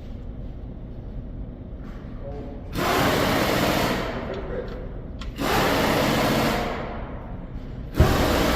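A power tool running in three short bursts of about a second each, the last starting with a sharp knock.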